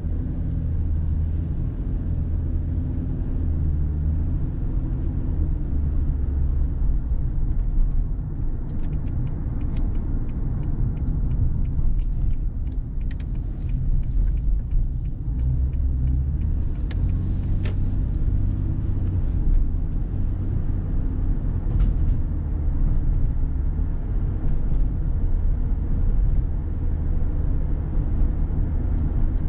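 Car driving on city streets: a steady low rumble of road and engine noise, with a few faint ticks and knocks around the middle.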